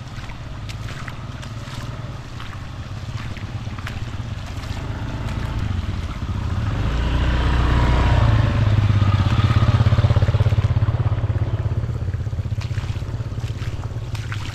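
Motor vehicle engine running, swelling louder to a peak about two-thirds through and easing off near the end.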